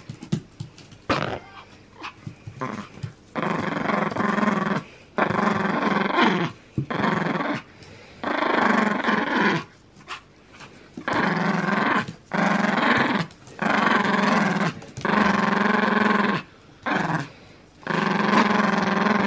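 Small Pomeranian-type dog growling in play with a toy in its mouth: a string of long growls, each about a second, with brief breaks between them and shorter broken growls in the first few seconds.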